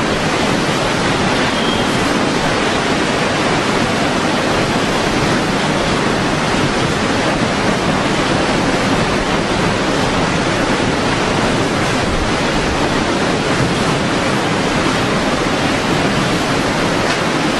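Hurricane wind and wind-driven rain making a loud, steady rush of noise with no let-up.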